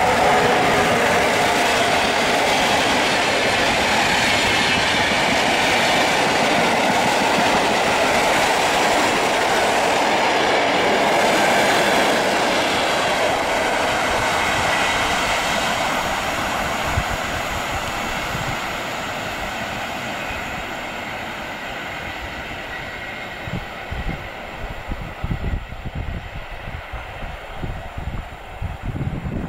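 Newag Griffin electric locomotive pulling away with a long rake of passenger coaches, the coaches' wheels running past on the rails as the train gathers speed. The train noise holds loud for about fifteen seconds, then fades as the last coach draws away, leaving uneven low rumbles near the end.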